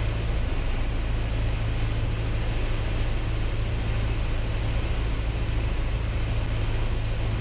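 Piper Cherokee 180's four-cylinder Lycoming engine and propeller droning steadily inside the cockpit, throttled back for the descent on final approach.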